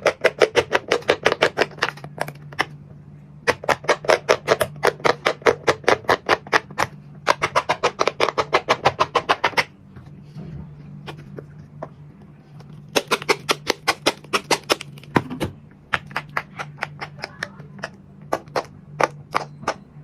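Silicone pop-it fidget toy bubbles pressed in quick succession, popping at several a second in long runs, with a pause of a few seconds around the middle.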